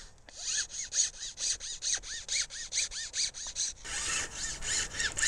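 A metal file rasping on a Japanese arrow cane shaft in quick, even strokes, about five a second, filing the leaf bumps off the nodes. About four seconds in the strokes grow louder and fuller.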